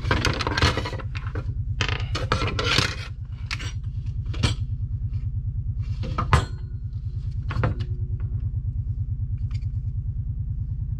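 Sharp clicks, knocks and scraping of plastic ice-maker parts being handled and fitted together, over a steady low, fast-pulsing mechanical drone.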